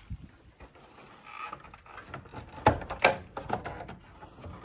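Scattered clicks and knocks of plastic casing parts being handled and worked loose on a ductless mini-split indoor unit under disassembly, with a cluster of sharp clicks about three seconds in.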